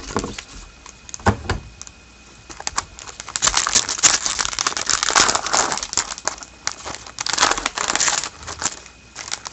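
A trading-card pack wrapper crinkling and cards being handled, a dense run of rustles and sharp clicks that is loudest through the middle.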